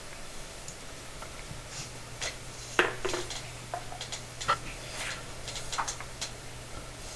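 Black iron pipe nipples and fittings being handled, giving scattered metal clinks and taps, the sharpest about three seconds in.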